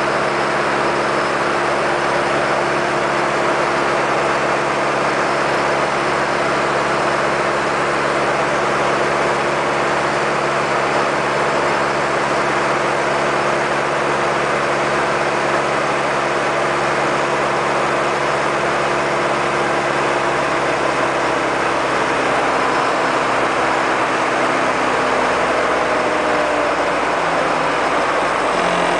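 Diamond DA40's piston engine and propeller heard from inside the cockpit on a landing approach: a steady drone over a broad rushing noise. Over the last several seconds the drone drops in pitch as power comes back for the landing.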